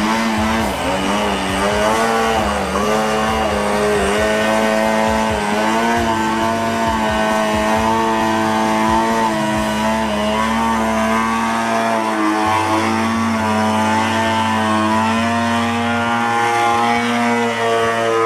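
O.S. GT22 single-cylinder two-stroke gasoline engine of an RC Slick 540 aerobatic plane running in flight, its propeller note rising and falling with the throttle during the first few seconds. From about halfway it holds a steadier pitch while the plane hangs nose-up on its propeller.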